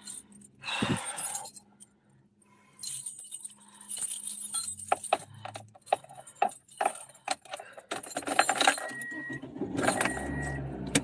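Keys jangling and clicking, with handling rattles, inside a car. Near the end a short high beep repeats about once a second and a low rumble starts.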